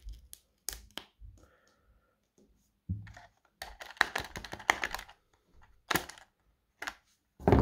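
Hard plastic handling noise from a fish counter and stopwatch unit: irregular clicks and taps, with a dense run of clicking and rattling about halfway through as the stopwatch is twisted out of its holder.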